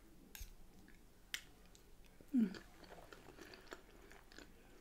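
Close-up mouth sounds of someone eating soft pie, mash and mushy peas: two sharp clicks, a brief low falling 'mm' about halfway through, then quiet wet chewing with many small smacks.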